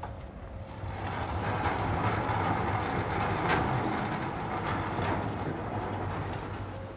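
Large wooden sliding doors of an engine shed being pushed open, rumbling and scraping on their rollers, with a few light knocks as they move.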